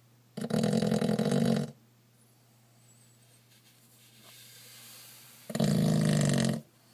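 Pug snoring: two loud snores about five seconds apart, each a little over a second long, with a quiet breath between them.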